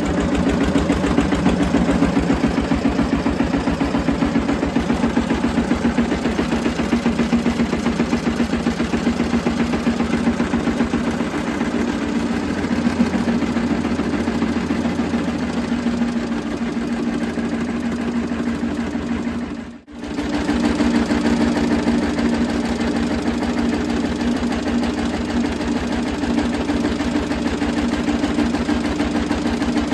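R.A. Lister single-cylinder stationary diesel engine driving a generator, running steadily at constant speed with an even, rapid exhaust beat. The sound drops out briefly about twenty seconds in.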